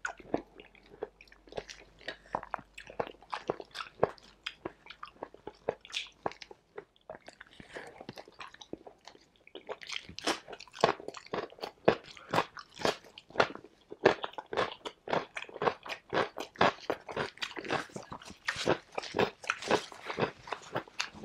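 Close-miked chewing with wet mouth clicks, then from about ten seconds in, louder, crisp crunching as raw cucumber slices are bitten and chewed.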